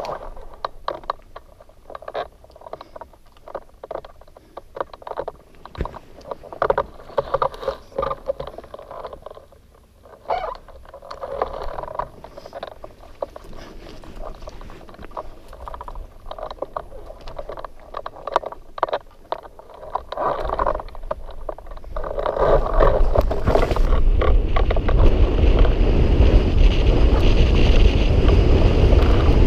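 Irregular knocks, rustles and gusts of wind on a hang glider pilot's microphone. About two-thirds in, a steady, louder rush of wind with a low rumble sets in as the Atos VR rigid-wing hang glider runs off launch and picks up airspeed.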